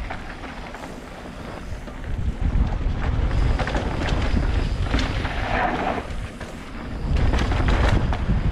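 Wind buffeting the microphone of a camera on a mountain bike riding down a dirt trail, with clicks, knocks and rattles from the bike over rough ground. It gets louder about two seconds in.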